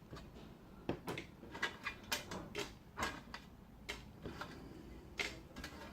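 About a dozen light clicks and taps at irregular intervals, small hard objects being handled or tapped.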